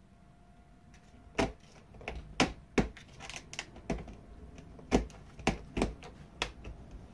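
Cat pawing and clawing at a closed wooden door, making it knock and click: about eight sharp, irregular knocks with smaller taps between, starting about a second and a half in.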